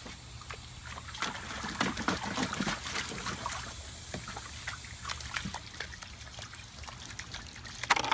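Kuvasz puppies splashing, sloshing and lapping water in a plastic kiddie pool: irregular small splashes, busiest in the first few seconds, with one louder splash near the end.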